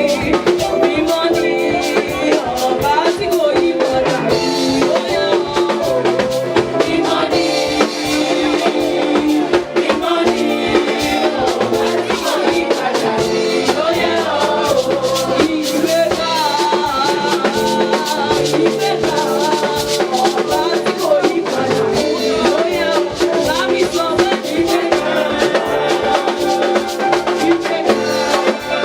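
Church choir singing with drums and shakers keeping a steady beat.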